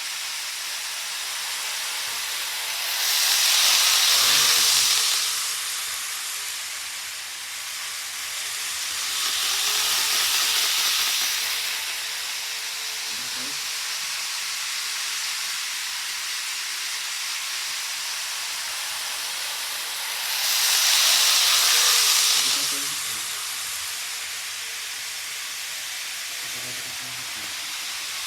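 Model trains running on a layout: a steady rushing hiss of wheels and motors on the track that swells three times as trains pass close by.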